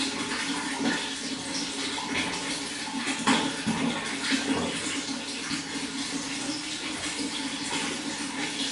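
Running water splashing and gurgling steadily, with many small irregular splashes.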